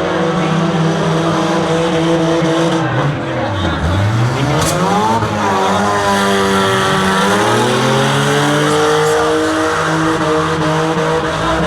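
Demolition derby car engines revving hard, their pitch dropping about three to four seconds in and then climbing again as the cars accelerate.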